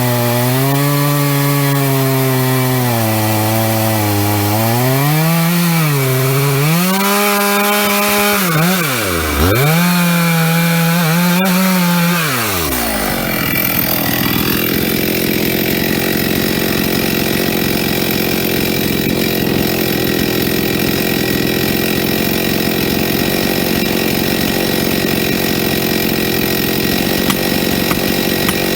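A chainsaw cutting into a large burl log. The engine pitch rises and falls as the bar takes load, and it drops sharply twice, about a third of the way in and near the middle. After that there is a steady, dense cutting noise with no clear engine note.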